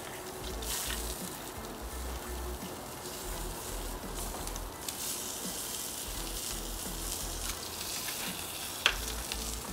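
Steak sizzling on the hot grates of a kamado grill as melted butter is brushed onto it, a steady hiss with fine crackle. There is a sharp click near the end.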